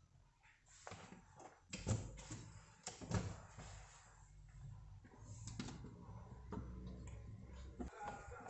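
Raw marinated pork rib pieces being laid and pressed by hand into a round metal baking pan: soft thuds and knocks of meat and hands against the pan, the two sharpest about two and three seconds in.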